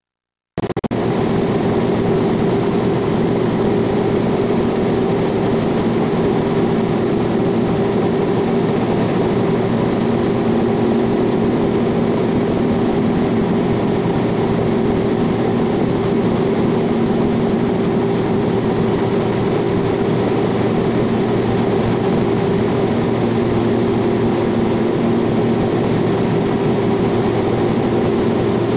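Cessna T303 Crusader's twin piston engines and propellers droning steadily, heard from inside the cabin. The drone cuts in abruptly about half a second in and then holds an even, unchanging pitch.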